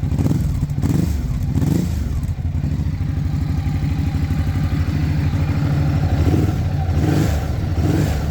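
Ducati Hyperstrada 939's Testastretta L-twin engine idling, blipped briefly a few times in the first two seconds, then running at a steady idle with a few light blips near the end.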